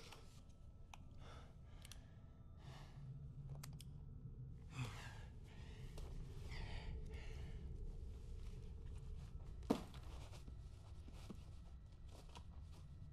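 A person breathing heavily in a tight, quiet space, with soft breaths and sighs over a low rumble and faint scuffs. A single sharp click comes about ten seconds in.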